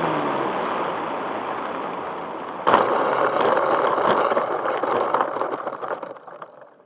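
RC plane landing, heard from the onboard camera: the motor's tone winds down at the start, leaving rushing air. Almost three seconds in comes a sudden thump as the landing gear hits the dirt, then rattling and bumping as the plane rolls over rough ground, fading out as it comes to a stop near the end.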